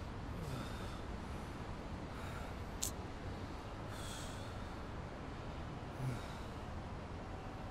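A man breathing heavily and sharply through his nose in distress, several short hissing breaths one to two seconds apart, over a steady low rumble. A single sharp click comes about three seconds in.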